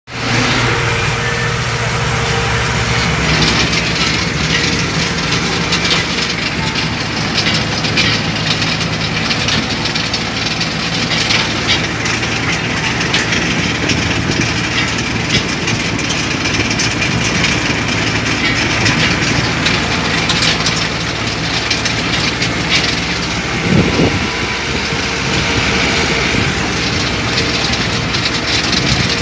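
Peat-harvesting machinery running steadily: a heavy engine's constant drone with continuous mechanical rattling and clatter, and one louder knock near the end.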